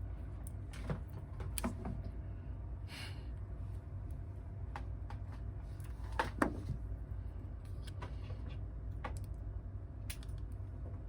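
Scattered small clicks and knocks of tools and phone parts being handled during a smartphone repair, over a steady low hum. The loudest knock comes about six seconds in.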